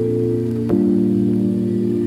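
Background music of sustained held chords, moving to a new chord under a second in.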